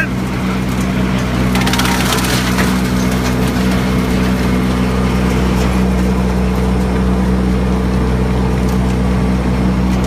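Trailed wood chipper running steadily while its toothed feed rollers draw in and crush a Leylandii log and branches, with a spell of sharp cracking and splintering wood about one and a half to two and a half seconds in.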